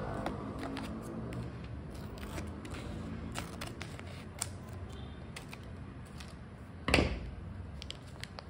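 Plastic-and-foil snack pouch crinkling and clicking as it is handled, then torn open with one loud rip about seven seconds in.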